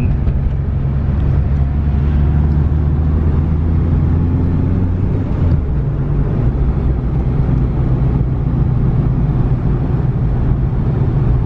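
Mitsubishi Lancer Evolution VI Tommi Mäkinen Edition's turbocharged four-cylinder engine running steadily with road noise, heard from inside the cabin while driving; the engine note shifts about halfway through.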